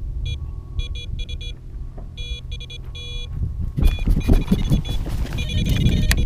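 Electronic carp bite alarm beeping in quick runs, the signal that a fish has picked up the bait and is taking line. About four seconds in, loud rustling and knocking takes over as the rod is grabbed, with the alarm still beeping underneath.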